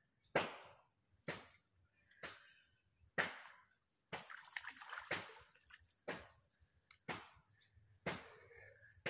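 Water splashing in sudden bursts about once a second, each fading quickly, with a quicker run of splashes about four to five seconds in.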